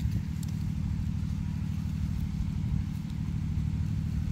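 Steady low drone of an engine running evenly, with a couple of faint light clicks.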